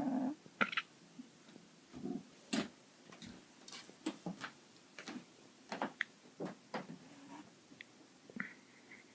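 A calico cat's snore trailing off in the first moment, then a run of faint, irregular clicks and ticks.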